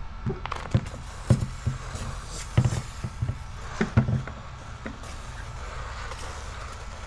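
Handling noise from clear paint protection film being lifted back off a car's wet rear hatch: a series of irregular soft knocks and rustles in the first few seconds, then only a low steady hum.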